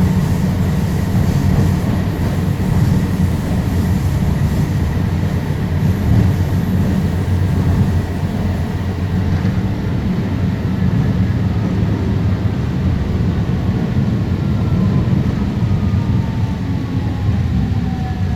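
Confederation Line Alstom Citadis Spirit light-rail train running on the track, heard from inside the car as a steady low rumble. Through the second half a motor whine glides down in pitch as the train slows.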